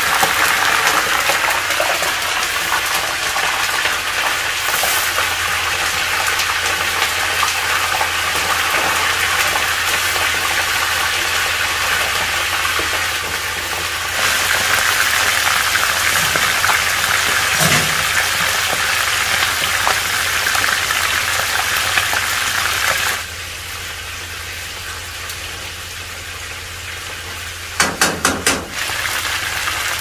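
Frogs deep-frying in hot oil: a steady, dense sizzle, with a low hum underneath from a few seconds in. About three-quarters of the way through the sizzle drops much quieter, and a few sharp clicks come near the end.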